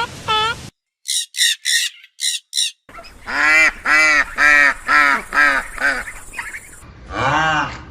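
A string of different animal calls spliced one after another: a burst of five short, very high-pitched calls, a pause, then a run of about eight evenly repeated honk-like calls, and one lower call near the end.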